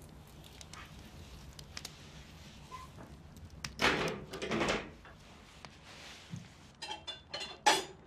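Wrought-iron fireplace tools being handled: a longer scraping rustle about halfway through as the fire is stirred, then a few sharp metal clinks near the end, the loudest just before the end, as a tool goes back into its stand. Faint scattered crackles of the wood fire underneath.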